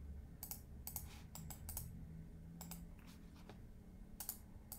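Faint, irregular clicks of computer keyboard keys and mouse buttons, about ten over a few seconds, some in quick pairs, over a low steady room hum.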